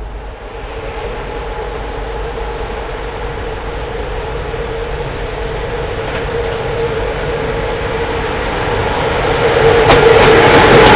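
CFR 060-EA electric locomotive drawing a train slowly past: a steady hum from its running gear and equipment over rolling noise, growing louder as it nears and passes close by.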